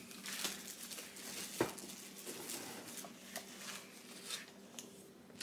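Packaging being handled and rustled, with scattered small clicks and taps and one sharper tap about a second and a half in.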